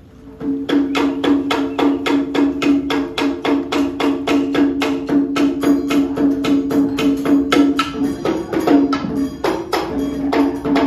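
Traditional Vietnamese water-puppet music: a wood block struck in fast, even clicks, about four or five a second, over a held low drone. It starts about half a second in, and the drone drops out briefly near the end.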